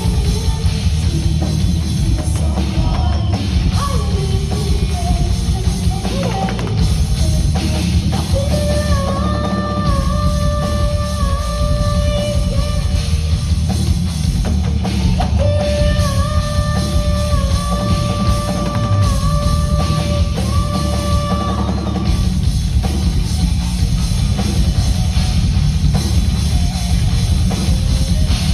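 Live hard rock band playing at full volume: pounding drum kit and bass under distorted guitars. A lead line holds long notes twice, each for several seconds.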